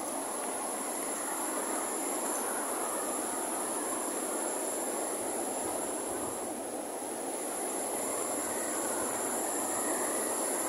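Whitewater pouring over the lip of a rock-ledge waterfall: a steady, even rushing roar that eases slightly a little past halfway. A steady high-pitched tone sits above it.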